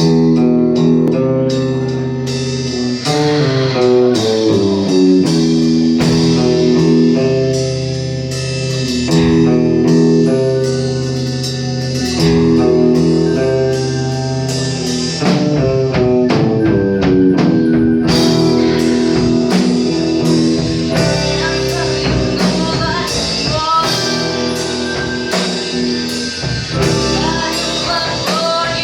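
Recorded music: a band with guitar and drums, with some singing.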